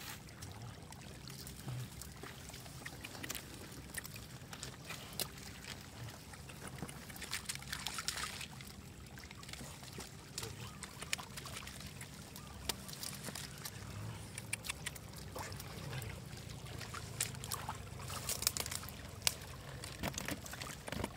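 Light splashing and trickling of shallow muddy water as fish flop and hands grab at them, with many small scattered clicks and a couple of brief louder splashy bursts.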